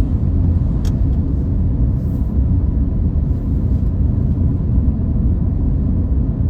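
Car driving, its engine and road noise a steady low rumble, with one short sharp click about a second in.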